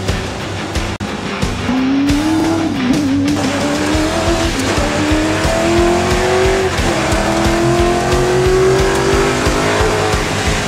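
V8 Supercar engine accelerating hard from inside the cabin, its pitch climbing and briefly dropping several times as it shifts up through the gears. Music plays over it.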